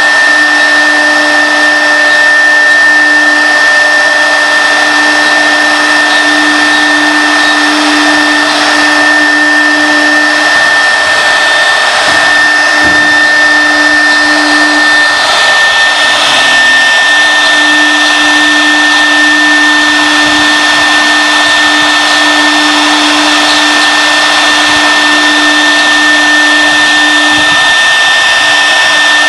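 High-speed spindle of an AP2030 CNC wood router running and cutting into a wood sheet: a steady high whine over a rushing cutting noise. The lower hum dips briefly in pitch about halfway through.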